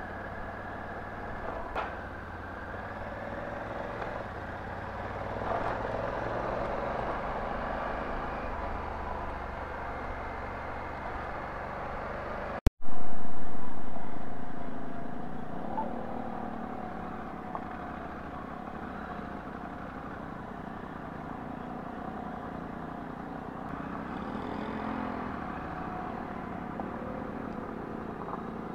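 Steady motor-vehicle engine and road noise. About halfway through, the sound drops out for an instant, then a sudden loud burst fades away over about three seconds before the steady running noise carries on.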